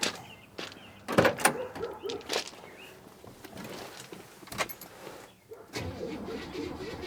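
A few clicks and knocks, then about six seconds in the starter begins cranking the Buick LeSabre's engine, which turns over steadily without catching: the freshly rebuilt Carter AFB carburetor is still dry of fuel.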